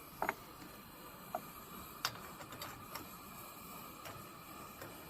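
Coleman 502A white-gas camp stove burning with a steady faint hiss, with a handful of short sharp clicks and ticks scattered through at uneven intervals.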